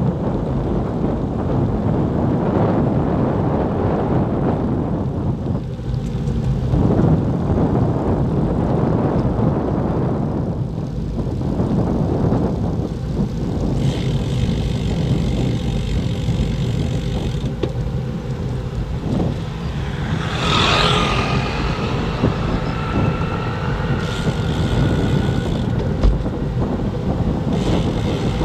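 Wind buffeting the microphone of an action camera on a moving road bike: a steady low rumble. About two-thirds of the way through, a thin whining tone rises quickly and then holds for a few seconds.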